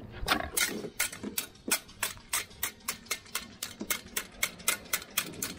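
Rapid sharp clicks and taps, about four a second, from chumming for sheepshead: something being worked over and over by hand to stir up the fish.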